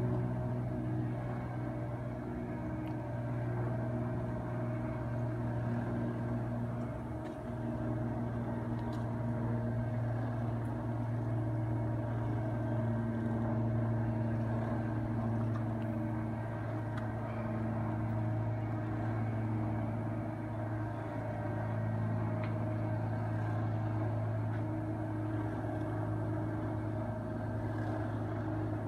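Electric roller motors of Atlas Armor motorized hurricane fabric screens running as the screens lower, a steady low hum with a brief dip in level about seven seconds in.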